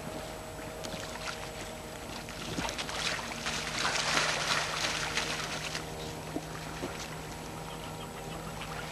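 Shallow water splashing as a child kneeling on an inflatable air mattress paddles with his hands, loudest and most choppy about three to five seconds in. A faint steady hum runs underneath.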